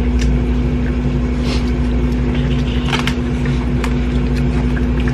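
Steady mechanical hum with a constant tone in it, like a room appliance running. Over it come a few short, sharp mouth clicks of close-up chewing on corn on the cob.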